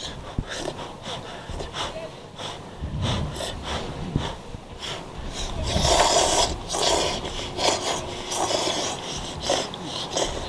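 People slurping steaming-hot noodles: a run of short, irregular slurps, the loudest and longest about six seconds in.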